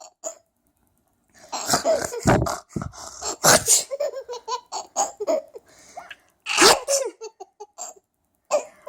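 Laughter that comes out as sneeze-like 'achoo' bursts, several in a row with short pitched giggles between them, starting after a brief quiet pause and with one loud burst near the end.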